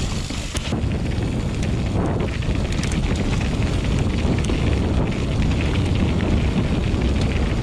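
Wind buffeting the microphone of a camera riding on a mountain bike, over steady tyre noise on the trail, with scattered clicks and rattles from the bike.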